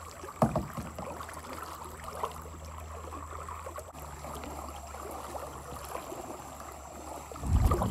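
Water rushing past a moving boat over a low steady hum, with a sharp knock about half a second in and a loud deep rumble near the end.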